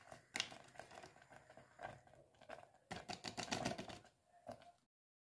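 A small paper sachet of vanilla torn open and shaken into a saucepan: crinkling and tearing paper with small clicks, busiest about three seconds in. The sound cuts off abruptly near the end.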